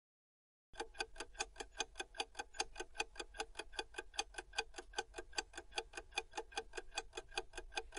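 Clock-ticking sound effect used as a quiz countdown timer: a fast, even tick-tock of about five or six ticks a second, starting just under a second in.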